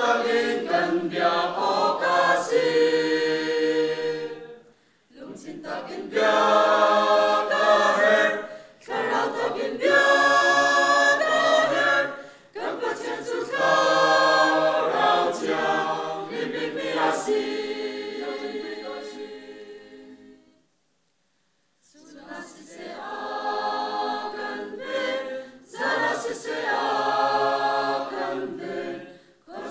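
Mixed choir of men and women singing unaccompanied, in phrases with brief breaths between. A little past the middle they stop for about a second and a half, then start again more softly.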